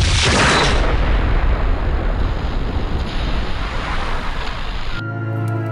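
Film sound effect: a sudden loud rushing whoosh that settles into a long deep rumble and slowly dies away. Music with sustained tones cuts in about five seconds in.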